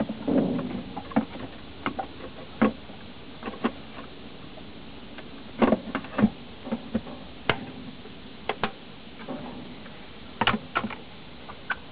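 Irregular clicks and knocks from handling a Mariner 9.9 hp outboard motor as it is moved and tilted on its clamp bracket; the engine is not running.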